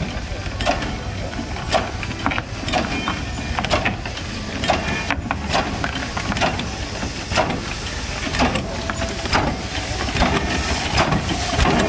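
Steam hissing steadily from the boiler of a replica Cugnot fardier steam carriage, with sharp irregular knocks and clacks from the machine.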